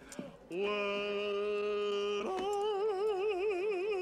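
A man's voice singing wordless mock-operatic notes: after a brief pause, a straight held note for nearly two seconds, then a leap to a higher note sung with a wide, wobbling vibrato.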